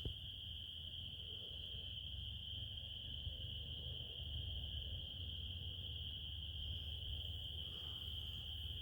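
Crickets trilling in a continuous, unbroken chorus at one steady high pitch, over a low steady rumble.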